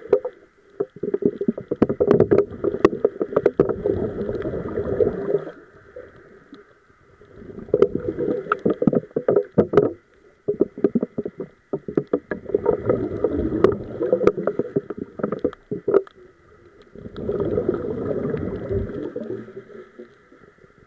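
Scuba regulator exhalations heard underwater: bursts of bubbling and crackling, each a few seconds long, four times with quieter breaks between them, over a steady faint high hum.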